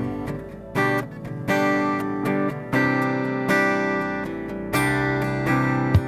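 Acoustic guitar strumming chords of a worship song, struck in strong, regular strokes.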